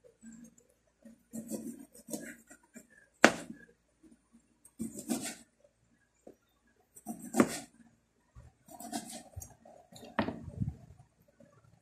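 Kitchen knife cutting limes on a cutting board: short scraping and rustling strokes, with three sharp knocks as the blade strikes the board.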